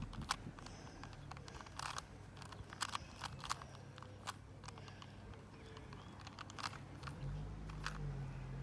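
A plastic Rubik's Cube being twisted by hand. Its layers make sharp, irregular clicks and clacks, a few each second, and a low steady hum comes in near the end.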